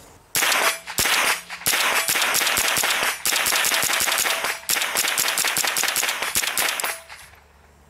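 Rapid semi-automatic fire from an AR-15 running a CMMG .22LR conversion kit: a long, fast string of .22 rimfire shots that stops about seven seconds in.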